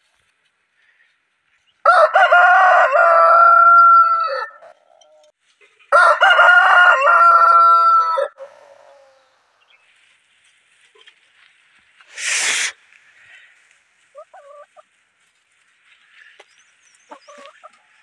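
A desi rooster crowing twice, each crow about two and a half seconds long with a drawn-out final note, the second starting a second or so after the first ends. About twelve seconds in comes a brief loud rush of noise.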